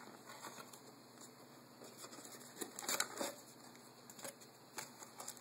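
Faint rustling and light knocks of hands handling an opened cardboard box and the plastic-wrapped papers inside, with a couple of louder rustles about three seconds in.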